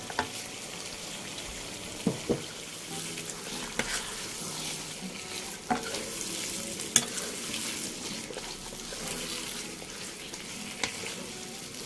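Thick acar sauce with cucumber and dried squid sizzling gently in a stone-coated wok while a wooden spatula stirs it, with a few sharp taps and scrapes of the spatula against the pan.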